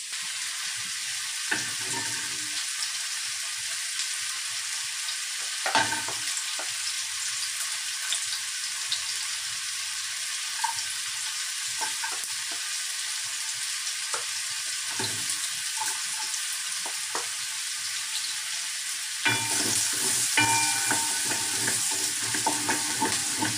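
Food sizzling in hot oil in a frying pan, a steady frying hiss, with a wooden spoon stirring and now and then knocking against the pan. The stirring gets busier and louder near the end.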